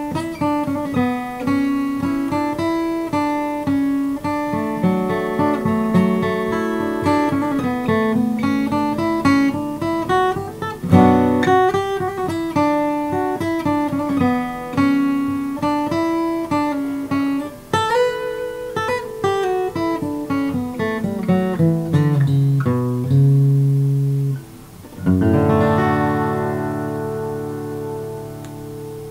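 Collings CW mahogany dreadnought acoustic guitar playing a waltz melody with bass notes, ending in a descending bass run. After a brief pause, a final chord is struck about 25 seconds in and left to ring, fading away.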